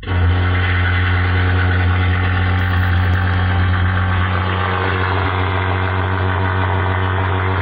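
Tower speaker driven by its faulty amplifier board, giving out a loud, steady, harsh buzzing hum that cuts in suddenly at the start. The sound is cracked and distorted, which the repairer puts down to a shorted 7294 amplifier IC.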